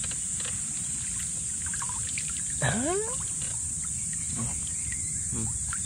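Steady high-pitched insect drone outdoors, with small water trickles and light splashes from fish being handled at the water. A single short rising call cuts in just under halfway through.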